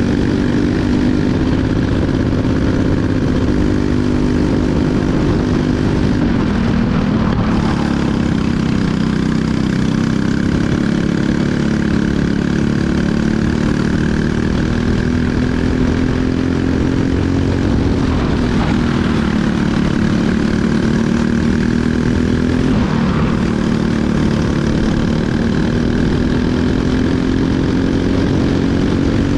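Briggs & Stratton LO206 single-cylinder four-stroke kart engine running at racing speed, heard from on board the kart. Its pitch climbs slowly down each straight and drops sharply several times as the driver lifts and brakes for corners, then climbs again on the throttle.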